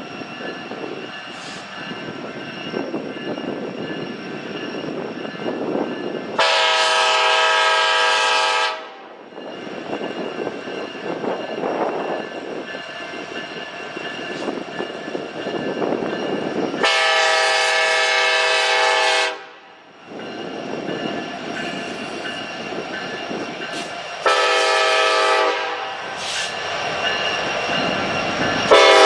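Diesel freight locomotive's air horn sounding a long, long, short, long grade-crossing signal, the last long blast starting near the end. A steady rumble of the moving train runs under and between the blasts.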